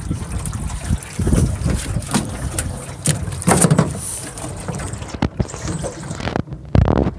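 Water sloshing and wind rumbling on the microphone in uneven surges, with a few sharp knocks.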